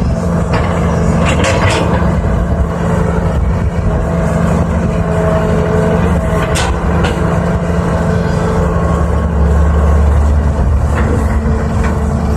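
Diesel engine of a 320 excavator running steadily at work, its drone swelling a little about two-thirds of the way in, with several sharp metal clanks scattered through.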